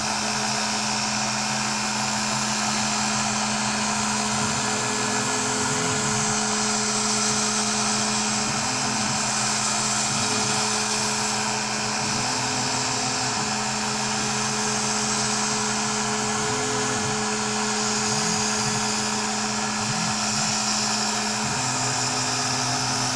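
Onefinity CNC router cutting foam board: a steady high-pitched spindle whine and hiss, with a lower motor hum that steps up and down in pitch every few seconds as the machine changes direction.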